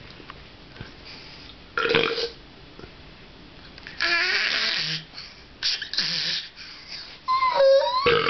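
Burps after a drink of soda pop: three separate belches, about two, four and six seconds in, followed by a young child's high-pitched voice near the end.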